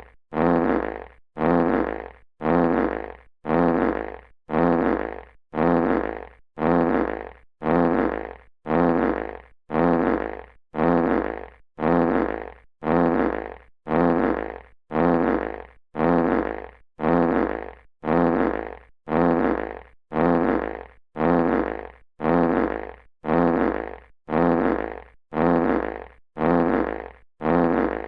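Classic fart sound effect looped, one identical blast about every second, each starting loud and tailing off.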